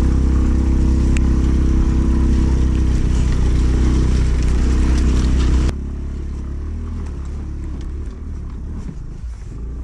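Aprilia Storm scooter's engine running under throttle, with road and wind noise, on a dirt track. A little over halfway through it drops abruptly to a much quieter run.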